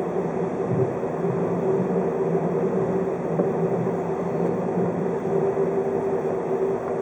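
A 583 series electric train running at speed, heard from inside the car: a steady rumble of wheels on rail under a constant low hum.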